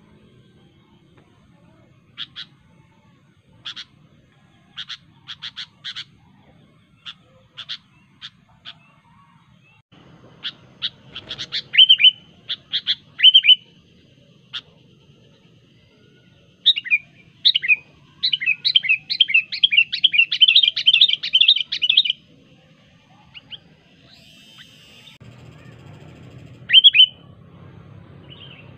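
Sooty-headed bulbul (kutilang) calling: scattered sharp single notes at first, then clusters of clear chirps, and a rapid run of chattering notes for several seconds past the middle, with one more call near the end.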